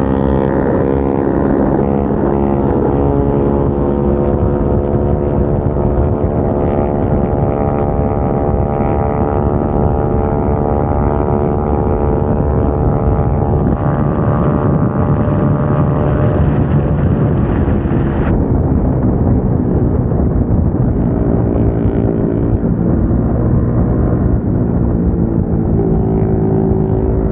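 Single-cylinder motorcycle engines with aftermarket exhausts running under way at fairly steady revs, their pitch drifting gently as the throttle changes, over a steady rush of wind and road noise.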